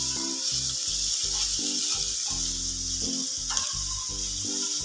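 Shredded cabbage, bell peppers, carrot and onion sizzling in hot oil in a stainless-steel kadhai while being stirred and tossed with a silicone spatula, a steady high hiss of sautéing.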